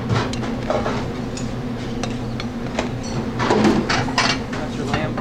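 Busy restaurant kitchen during service: a steady hum of kitchen equipment under scattered clinks and knocks of plates and utensils, busiest a little past the middle.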